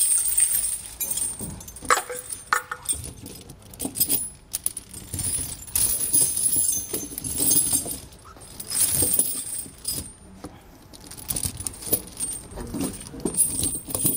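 Titan Chain steel V-bar snow tire chains clinking and rattling as they are handled and draped over a truck tire, the links jangling in irregular bursts.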